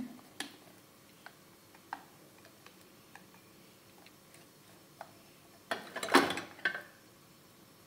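A spoon tapping and scraping against an enamel bowl as thick cake batter is scraped out: scattered light clicks, then a louder clatter of several knocks about six seconds in.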